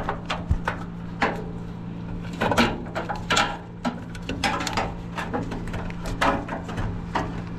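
Irregular clicks, knocks and rubbing as capacitors and their fittings are handled and fitted back into an HVAC unit, over a steady low hum.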